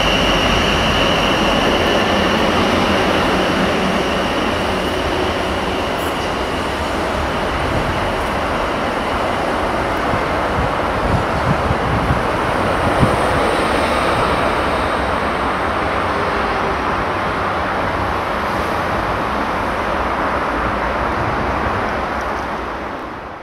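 London Midland Class 350/1 Desiro electric multiple unit pulling away and running off into the distance, a steady rumble with a high whine that fades over the first few seconds. A few light clicks of wheels over rail joints come about halfway, and the sound fades out at the very end.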